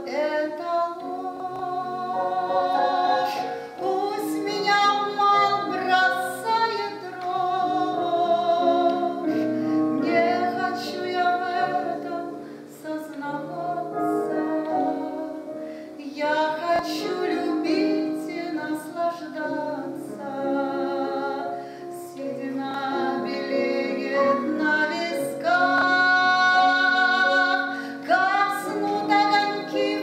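A woman singing live on stage, with held notes that waver in vibrato, accompanied by piano.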